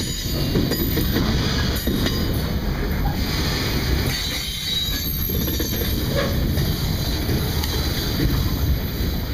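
Freight train boxcars and tank cars rolling past close by: a steady heavy rumble of steel wheels on the rails, with faint high wheel squeal at times.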